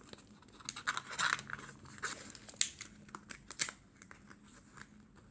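Packaging being handled: light rustling and crinkling of wrapping, with scattered small taps and clicks.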